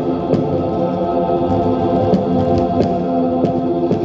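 A sustained, organ-like chord of many steady tones, held without change, with a few scattered light ticks.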